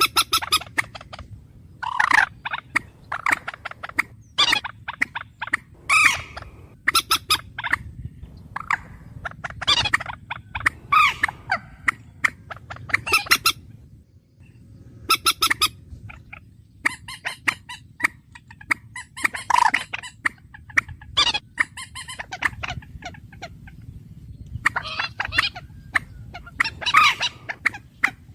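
A bird calling over and over: short, sharp calls in quick clusters with gaps between them, over a steady low hum.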